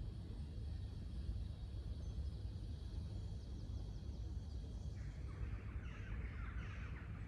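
A slow breath drawn through one nostril, a soft rushing hiss starting about five seconds in and lasting about two seconds, over a steady low outdoor rumble.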